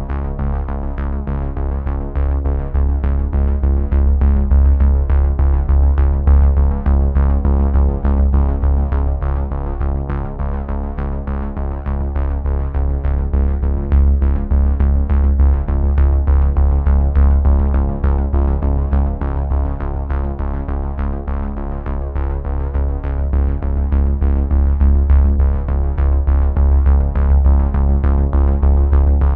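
Background electronic music with synthesizer chords and a steady beat.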